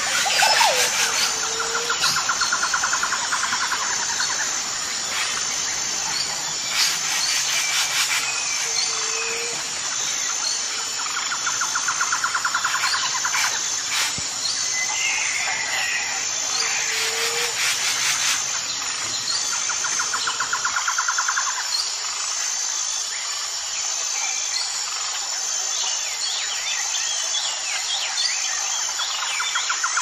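Natural forest ambience: a steady high insect drone with recurring pulsing trills and scattered short bird chirps.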